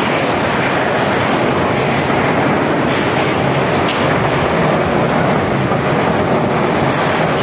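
Heavy rain and strong storm wind, a loud steady rush of noise.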